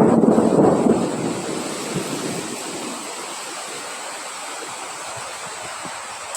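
Wind blowing, with a strong gust at the start that fades over about two seconds into a steady rush.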